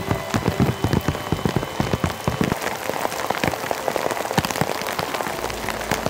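Heavy rain falling, with many sharp, irregular drop strikes close by over a dense hiss. A low steady rumble joins near the end.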